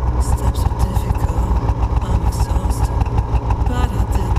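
Snowmobile engine idling with a steady low rumble.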